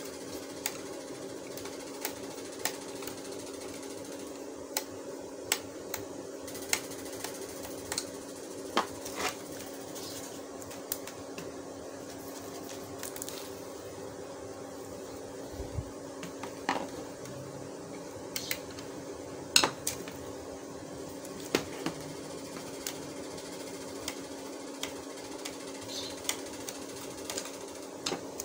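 Scattered small clicks and taps of a screwdriver and hard laptop plastic as the laptop's hinge screws are undone, over a steady low hum.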